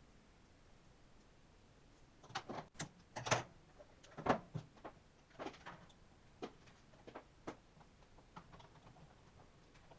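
Laptop parts and tools being handled: a run of irregular sharp clicks and knocks starting about two seconds in, the loudest a little after three seconds and four seconds, then lighter taps near the end.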